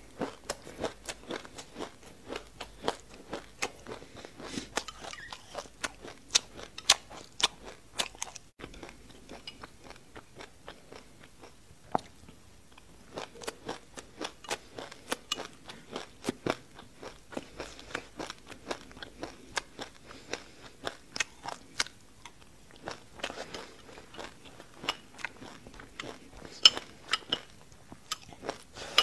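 Close-up crunchy chewing of a mouthful of sesame seeds and passion fruit: rapid sharp crackles of seeds breaking between the teeth, several a second, easing briefly about a third of the way in.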